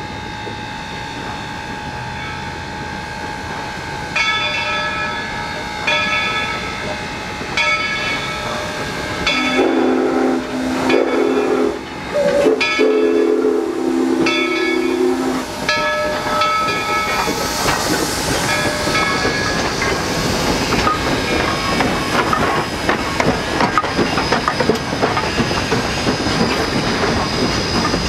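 Approaching double-headed steam locomotives blowing their chime whistles in a series of blasts starting about four seconds in, joined in the middle by a second, deeper whistle. After that comes hissing steam as the engines pass close, then the rolling rumble of the passenger cars going by.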